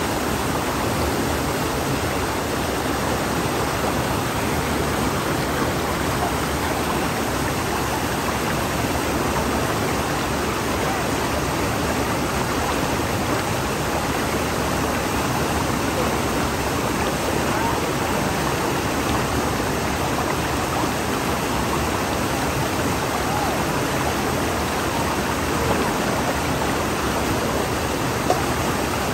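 Steady rushing noise of flowing water, with one brief knock near the end.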